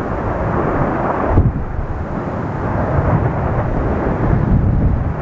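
Lava fountain erupting from a volcanic cone: a continuous deep rushing rumble that swells in pulses, with the strongest surge about one and a half seconds in.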